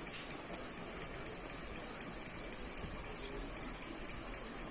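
A fork beating egg and milk together in a bowl: quick, light, repeated taps and scrapes of metal against the bowl.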